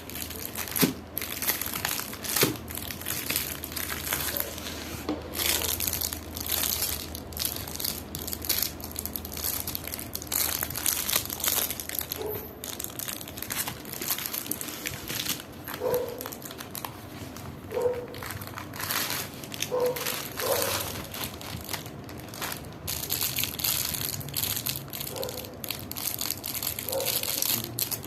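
Plastic packaging crinkling and rustling as it is handled and unwrapped, with scattered sharper crackles and a few short squeaks.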